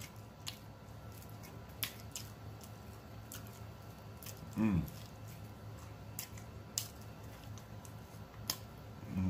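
Close-miked wet eating sounds: scattered smacks and clicks of chewing and lip-smacking. About halfway through there is one short hummed "mmm" moan.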